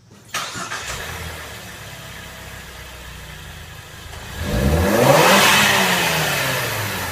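Ford Escape's 2.0-litre turbocharged four-cylinder starts just after the beginning and runs steadily. About four and a half seconds in it is revved once: the pitch climbs quickly, then falls slowly back toward idle.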